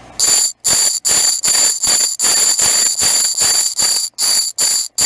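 Ratchet screwdriver being worked rapidly back and forth, each stroke a burst of fast metallic ratchet clicks with a high ringing, about two or three strokes a second, starting a moment in.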